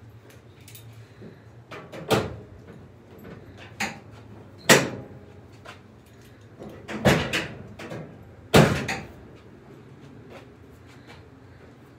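About five sharp metallic clunks, a second or two apart, from a Mustang's steel body panels being handled and knocked during fender fitting.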